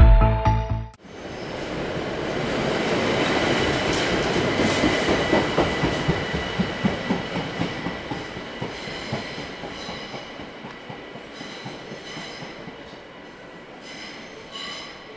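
Intro music cuts off about a second in, then an ÖBB S-Bahn electric train pulls away through an underground station. Its wheels rumble and click over the rail joints under a thin steady high whine, and the sound fades as it moves off into the tunnel.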